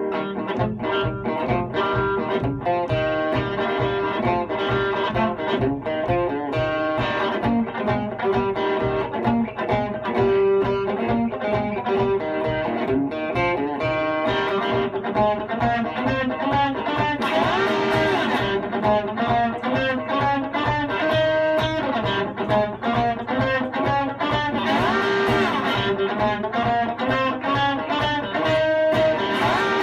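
Instrumental guitar music: electric and acoustic guitars playing over a steady beat, with no singing.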